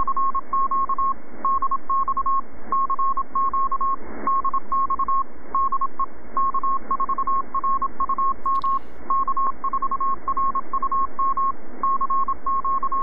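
Morse code (CW) signal on the 20-metre amateur band, received through a software-defined radio: a single tone of about 1 kHz keyed on and off in dots and dashes over steady receiver hiss. The station is calling CQ.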